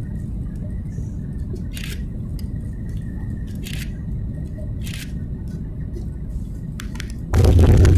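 Cabin noise of a Boeing 737 MAX 8 over the wing on final approach: a steady low engine and airflow rumble with a faint steady whine and a few short rattles. About seven seconds in it jumps suddenly into a much louder, heavier rumble as the main wheels touch down on the runway.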